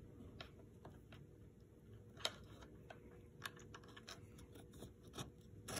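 Faint, irregular small clicks and taps of a helmet's side accessory rail and its mounting screw being handled and fitted by hand.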